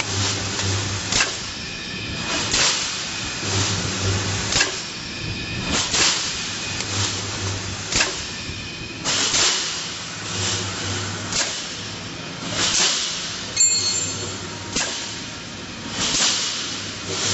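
Double-wire mesh fence welding machine cycling: the welding transformer gives a low buzz for about a second roughly every three and a half seconds, between sharp clacks and short hisses from the pneumatic electrode cylinders.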